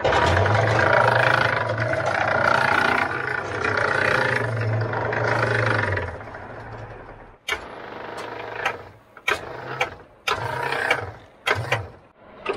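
Booster hose reel on a Type 3 wildland brush engine being worked as the hard booster line is paid out and taken back up. A steady mechanical run with a low hum lasts about six seconds, then gives way to irregular clanks and rattles.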